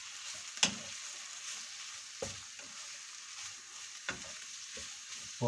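Pork belly strips, carrot and spring onions sizzling in a hot wok as they are stir-fried, with a steady hiss and several short knocks and scrapes of a wooden spatula against the pan.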